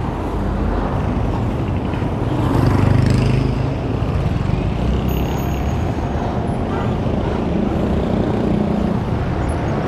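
Street traffic heard from a moving bicycle: motor vehicle engines running over steady wind noise on the microphone. A louder vehicle swells past about three seconds in.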